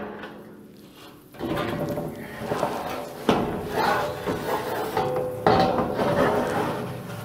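A long ribbed metal roofing sheet rattling and scraping as it is pushed up onto the roof, with three loud clanks about two seconds apart.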